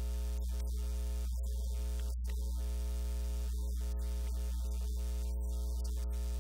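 Loud, steady electrical mains hum with a buzzy ladder of overtones, unchanging throughout and covering whatever else is on the track.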